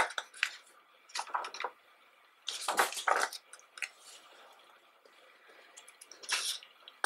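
Pages of a thick photo book being turned by hand: the paper rustles in a few short swishes, with light handling clicks between.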